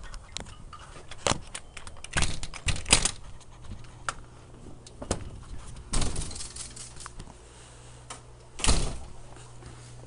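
Handling noise from a camera being moved about: irregular clicks, knocks and rustling, loudest about two to three seconds in and again near nine seconds.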